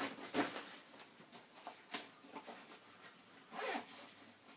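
Short rustling, scraping handling noises, three or four brief swishes with the longest about three and a half seconds in, as an 18650 cell is fetched and swapped on the bench.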